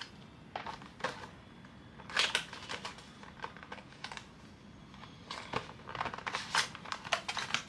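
Cosmetic packaging being opened and handled: scattered rustles, taps and small clicks of cardboard and plastic, a few around two seconds in and a busier run near the end.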